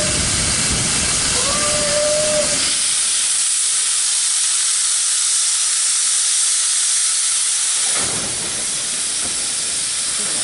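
Steam locomotive R761 standing with steam hissing loudly and steadily, with one short steady tone about two seconds in.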